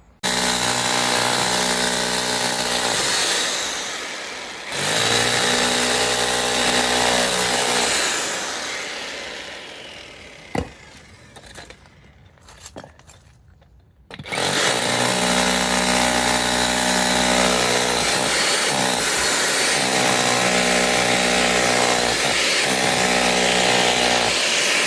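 Titan 1500W SDS rotary hammer running against a brick wall. It runs in two bursts that each wind down, about four and eight seconds in. A sharp knock comes about ten and a half seconds in, then the hammer runs steadily again from about fourteen seconds on, with brief dips.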